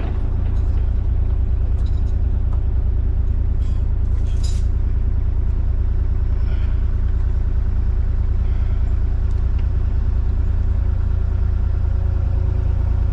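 Diesel engine of an excavator running steadily, with a few faint metallic clicks about four seconds in.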